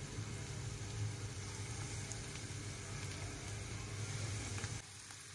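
Flour-coated mandeli (golden anchovy) gently sizzling in shallow hot oil in a frying pan over a low flame, an even hiss with a steady low hum underneath. The sound drops slightly near the end.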